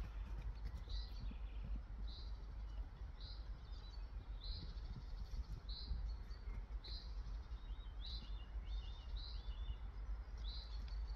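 A small bird chirping: short high calls repeated about once a second, some followed by a quick stuttered trill, over a steady low rumble.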